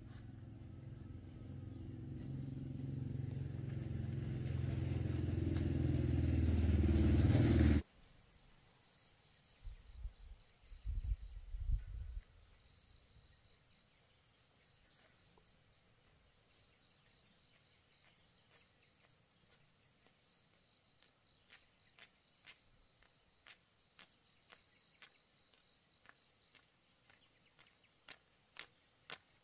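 An engine running and growing steadily louder for about eight seconds, then cutting off abruptly. A few low thumps follow, then faint insects chirping in short pulsed trills.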